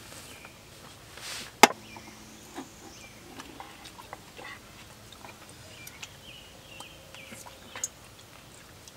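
Small clicks and taps of wooden chopsticks and tableware while eating at a camp table, with one sharp knock about a second and a half in.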